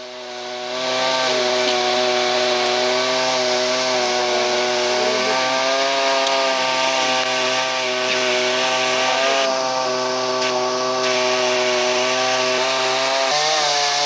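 Chainsaw engine running at a steady speed, with a change in engine pitch near the end.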